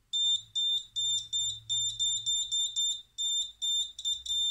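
Small electronic buzzer powered by a 1.5 V AA battery, giving a high-pitched tone that comes as a rapid string of short, uneven beeps. The tone cuts in and out as the hand-held wires make and lose contact with the battery.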